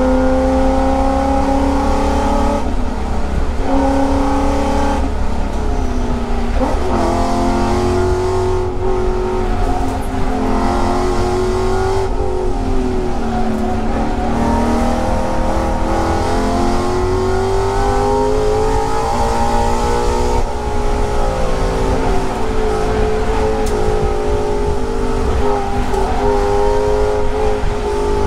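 Race-prepared Ford Mustang engine heard from inside the cockpit at speed on track, its pitch repeatedly climbing under acceleration and dropping at gear changes.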